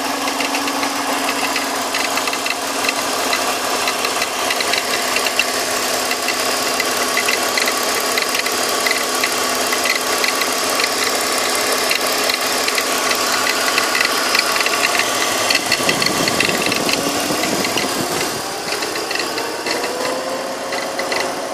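BMW M54B25 2.5-litre inline-six engine running at operating temperature, a steady hum with a busy ticking, rattly texture: the gurgling sound the owner is recording. About three quarters of the way through, several tones glide upward and the sound gets a little quieter.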